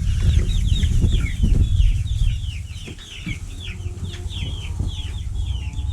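A flock of young chickens cheeping: a quick, continuous run of short, high, downward-falling peeps, over a steady low rumble.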